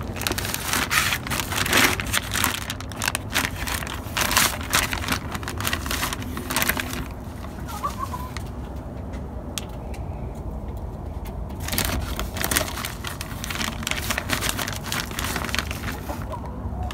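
Plastic zip-top bag crinkling and rustling as it is opened and succulent cuttings are pulled out, in two long stretches with a quieter pause between.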